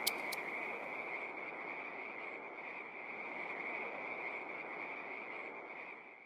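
A steady night chorus of calling animals: a continuous high-pitched trill over a faint hiss, fading out and stopping near the end.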